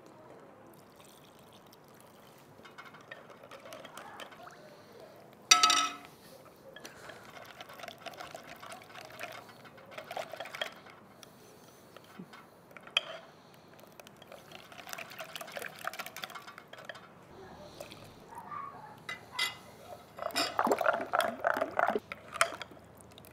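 Kitchen sounds of liquid being poured or splashed, with dishes clinking. One sharp, ringing clink about five and a half seconds in is the loudest sound.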